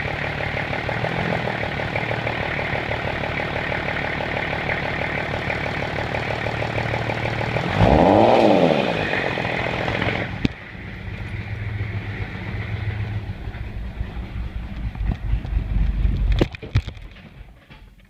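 Nissan TD42 straight-six diesel engine running steadily, freshly rebuilt and with no inlet manifold fitted. About eight seconds in there is a loud sudden rush of noise, as an oil filter seal bursts and sprays oil. At about ten seconds the steady running cuts off, and a lower, uneven rumble follows as the engine limps on during shutdown, then stops near the end.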